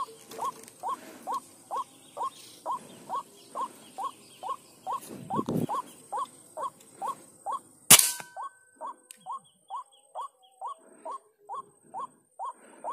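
A bird's short call, repeated evenly about twice a second, runs on without a break. About eight seconds in comes a single sharp air rifle shot from a Bocap HM Sport, the loudest sound.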